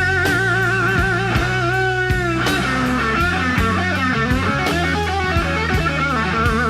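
Slow electric blues played live: the lead electric guitar fills between vocal lines, holding one bent note with a wide vibrato for about two seconds, then moving into quicker phrases over bass and drums.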